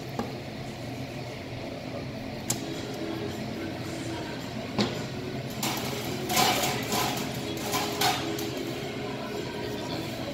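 Steady low hum of a work room, with a few sharp knocks and a cluster of clattering noises about six to eight seconds in.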